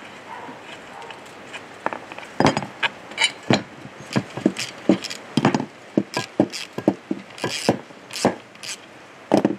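Close-up metallic clicks and clinks of a socket, nut and bolt being worked on the steel blade bracket of an old post hole digger. Quiet for about two seconds, then a run of irregular, sharp clicks of uneven loudness.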